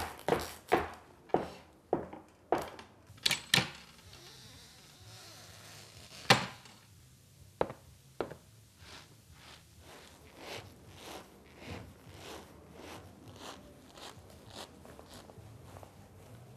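Foley footsteps going down stairs, made by tapping a hand-held wooden prop on the table at about two steps a second. Then comes a short hiss and a single sharp click for the door, followed by softer crunching steps made by squeezing a small cloth bag in rhythm, imitating footsteps in snow.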